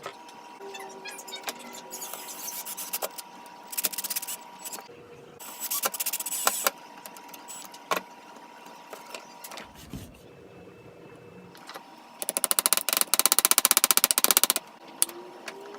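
Power drill with a flathead screwdriver bit working hinge screws on a wooden table: short runs and clicks of the bit on metal, then a fast, even rattling burst of about two seconds near the end.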